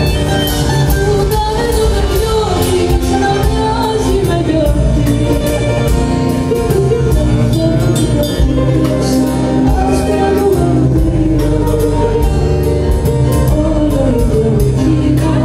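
Live band playing a Greek song: a woman sings over acoustic guitar, electric bass and a drum kit keeping a steady beat.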